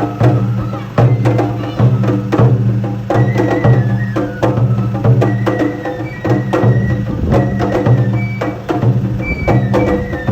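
Japanese festival music (matsuri-bayashi) from a float procession: rapid, regular drum and percussion strikes over a sustained low tone, with a high melody line above.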